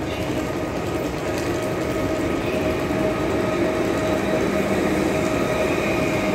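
Multiple-unit passenger train running past a station platform close by: a steady rumble of the cars on the track with a whine of a few steady tones from the running gear. A lower hum joins about two-thirds of the way in.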